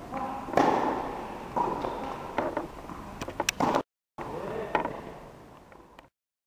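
Tennis ball struck by a racket on a serve about half a second in, followed by more sharp ball hits and bounces that echo in a large indoor court hall. The sound breaks off briefly just before four seconds in, one more hit follows, and it fades out near the end.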